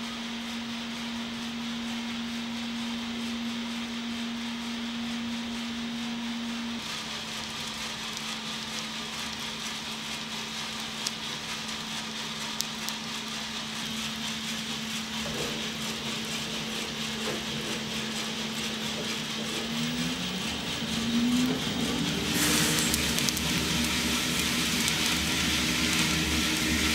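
Giesen drum coffee roaster running with a steady hum. About 20 seconds in, a motor spins up with a rising whine, and a couple of seconds later a louder rushing noise starts as the roasted beans pour out of the drum into the cooling tray.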